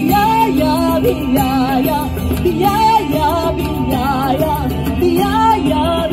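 A woman singing live into a microphone over accompanying music. Her long held notes waver and bend in pitch.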